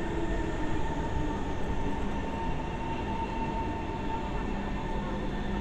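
SMRT C151 metro train running along the platform as it pulls into the station: a steady low rumble of wheels on rail, with a whine of several steady tones from its motors over it.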